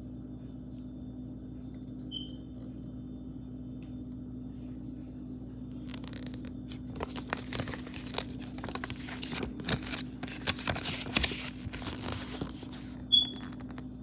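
Paper and plastic packaging crinkling and rustling as it is handled, starting about six seconds in, over a steady low background hum. Two short high chirps, a faint one about two seconds in and a louder one near the end.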